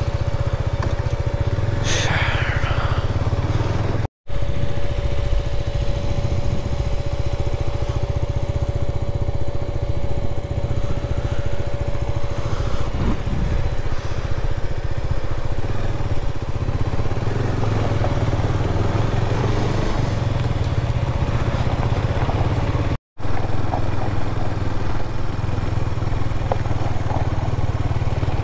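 KTM 390 Duke's single-cylinder engine running steadily as the motorcycle rides along. The sound is a continuous low drone with a faint steady whine, broken by two brief dropouts.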